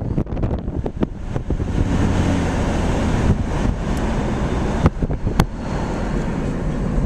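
A motor running steadily with wind buffeting the microphone, and a few sharp clicks.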